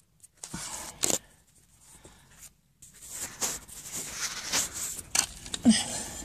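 Rustling and scraping of a caver and gear moving over loose sand in a tight tunnel, in irregular spells, with a short voice sound near the end.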